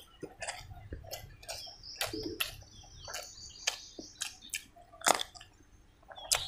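Close-miked chewing of a handful of rice and pork curry: many small wet, clicking mouth sounds.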